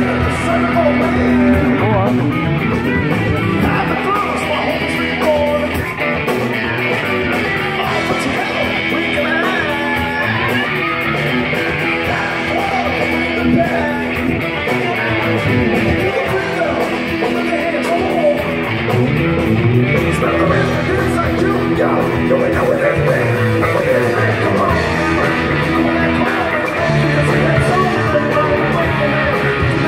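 Live rock band playing: electric guitars and drums with keyboard, and a singer's voice over the music, amplified through the stage PA.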